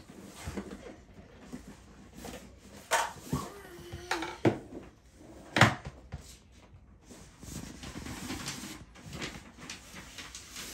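A child rummaging through a school backpack and handling a plastic document folder and papers: rustling, with a few sharp knocks and clicks, the loudest three coming between about three and six seconds in.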